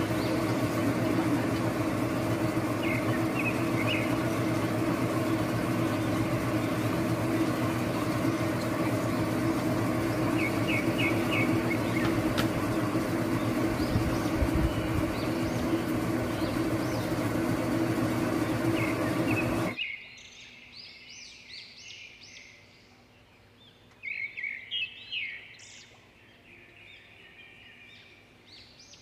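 A steady machine hum with a broad rush of noise, with small birds chirping over it. The hum cuts off abruptly about twenty seconds in, leaving much quieter air filled with repeated bird chirps and calls.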